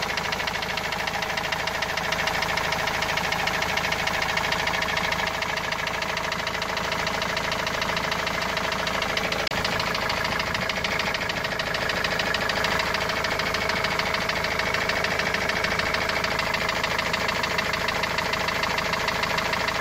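Opel turbo-diesel van engine running at idle with a steady, rapid hammer-like knocking, a noise whose source the owner cannot find.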